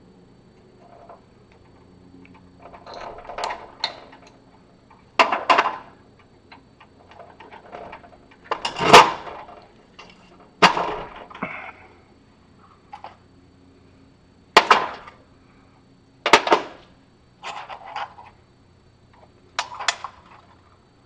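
Steel machine-skate parts and ball bearings being handled and set down on a metal workbench: a string of separate metal clanks and clicks a second or two apart, with a softer rattle about three seconds in and the loudest clank about nine seconds in.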